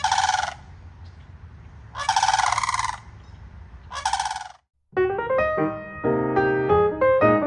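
Sandhill cranes calling: three loud, rolling, rattling calls, the middle one longest. About five seconds in the calls give way to piano music.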